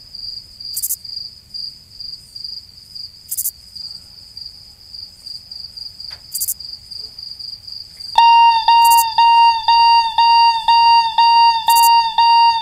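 A high, steady, fast-pulsing trill. About eight seconds in, a Sonic Alert Sweetheart alarm clock goes off, beeping loudly about three times a second: the wake-up alarm.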